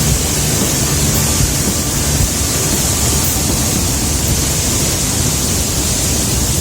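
Waterfall's water rushing steadily: a dense, even hiss with no breaks.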